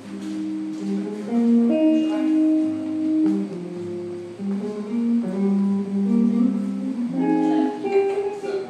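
Solo acoustic guitar, plucked notes and chords ringing out in a slow melody over low bass notes.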